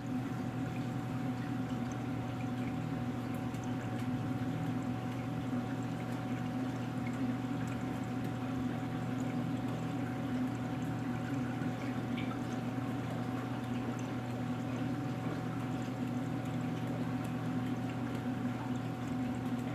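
EcoTech Marine VorTech MP40QD Quiet Drive aquarium pump running in a marine tank: a steady low motor hum under the sound of moving water.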